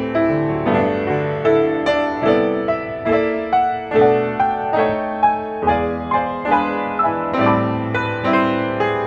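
Baldwin acoustic piano played by its PianoDisc player system, reproducing a solo jazz piano recording: chords and melody notes struck about twice a second.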